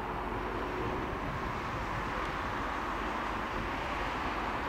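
Steady rushing jet noise from a distant formation of four jet aircraft flying an aerobatic display.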